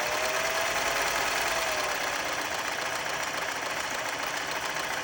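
1957 Singer Model 501A sewing machine running steadily at speed, its motor and needle mechanism stitching rapidly.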